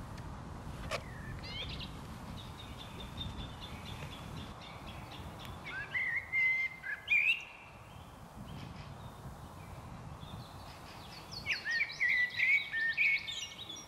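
A songbird singing outdoors: faint high twittering, then two louder song phrases of quick, high notes, about six and about twelve seconds in. A steady low rumble runs underneath.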